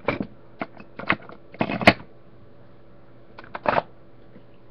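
Handling noises from drawing supplies on a desk: a few short scrapes and light knocks, with a louder cluster about two seconds in and another about a second before the end.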